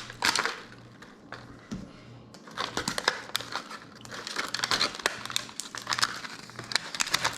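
Thin plastic packaging crinkling and rustling, with many short plastic clicks and taps, as Mini Brands packets are unwrapped and handled.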